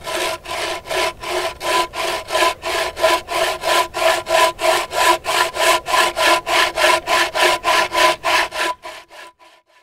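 Bow saw with a freshly file-sharpened 21-inch Bahco peg-tooth dry-wood blade cutting through a log in quick, even strokes, about four a second, with a steady ringing tone under the strokes. The strokes grow fainter and stop near the end.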